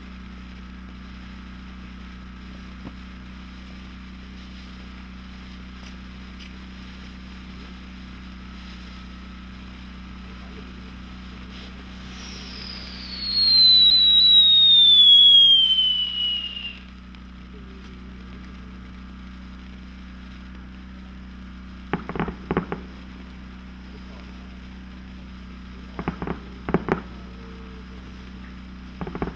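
Jackpot Fountain consumer firework burning over a steady low hiss. About twelve seconds in, one loud whistle falls in pitch for about four seconds. Later come three short bursts of crackling pops.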